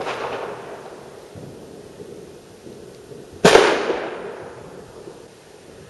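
A distant gunshot goes off at the start and echoes away, then about three and a half seconds in a louder firework bang, its echo fading over the next couple of seconds.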